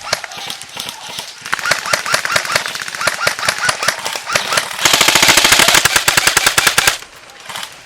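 Airsoft electric guns firing rapid automatic bursts, with a louder, closer burst starting about five seconds in and stopping abruptly about two seconds later.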